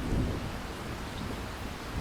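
Steady rainfall with a deep low rumble underneath, swelling briefly near the start.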